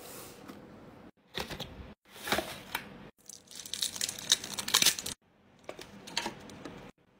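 Plastic packaging being unwrapped by hand: crinkling and tearing of plastic film with small clicks of handled plastic parts. It comes in several short bursts that cut off suddenly.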